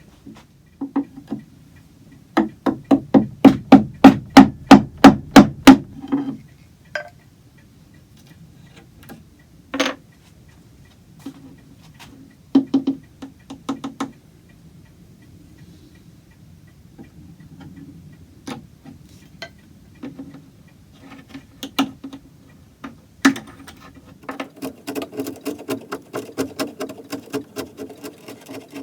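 Knocking on the glued-on wooden brick-pattern blocks of a grandfather clock plinth, checking by sound which ones are no longer held on well: a quick run of about a dozen sharp taps, then scattered single taps, and near the end a faster run of lighter clicks.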